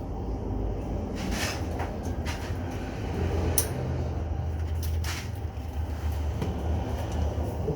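Scattered knocks and clicks of metal parts and tools being handled during the cutout valve install, over a steady low rumble.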